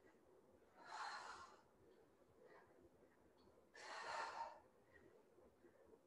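A woman breathing out hard twice, about three seconds apart, once with each full sit-up and dumbbell press.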